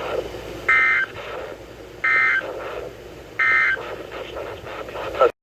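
Three short bursts of Emergency Alert System end-of-message data tones, a warbling two-tone digital squawk, about 1.3 s apart, over a noisy radio signal. The audio cuts off abruptly near the end.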